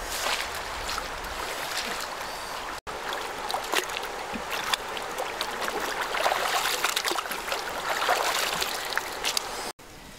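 Water splashing and trickling as a wicker basket is worked in shallow river water, with many small splashes and drips.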